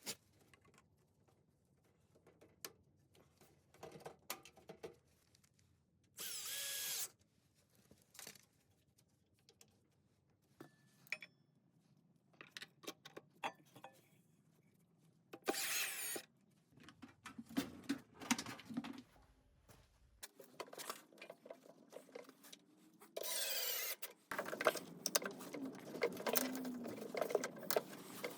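Workshop work on a washing machine: scattered clicks and knocks of parts and tools being handled, broken by three short whirring bursts of a power tool. A longer, busier stretch of power-tool noise with rattling starts near the end.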